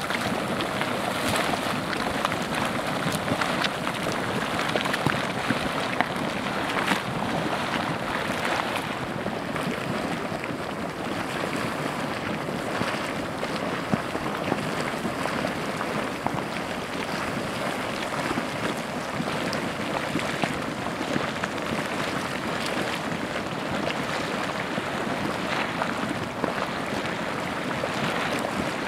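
Geothermal mud pots and gas vents bubbling and hissing: a steady rush dotted with many small pops.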